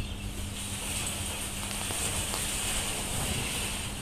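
Steady hissing background noise with a low hum.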